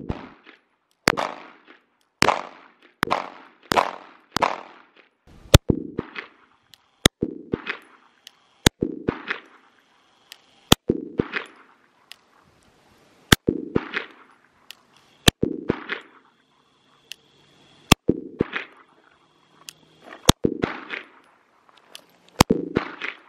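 A 9mm Glock pistol firing a string of shots at roughly one per second, with a few quick double shots, each shot trailing off in echo.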